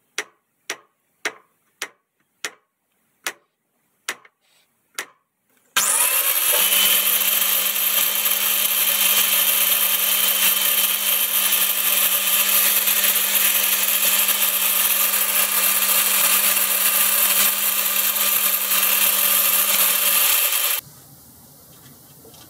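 About ten sharp hammer blows, roughly two a second, driving a hex form tool into the bore of a new chuck jaw screw. About six seconds in, an angle grinder mounted in the lathe tool post starts up, rising briefly in pitch, and runs steadily for about fifteen seconds, grinding the end of the form off, then stops abruptly near the end.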